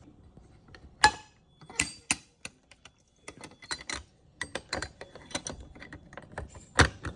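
Irregular run of clicks, clinks and knocks from small hard objects being handled, with a sharp knock about a second in and another near the end.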